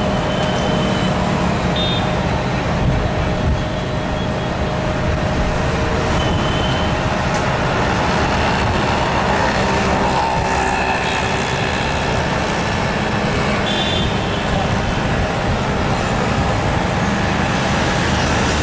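A vehicle engine running steadily at idle amid street traffic noise, with a few short high-pitched tones now and then.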